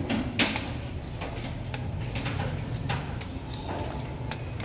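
Irregular metallic clicks and light knocks of hand tools on engine parts during a teardown, over a steady low hum.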